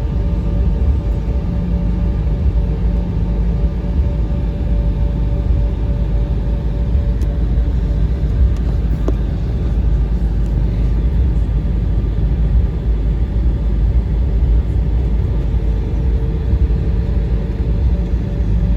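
Cabin noise inside an Embraer ERJ 145 regional jet: a steady low rumble with a faint, even hum from its rear-mounted Rolls-Royce AE3007 turbofans at a constant setting.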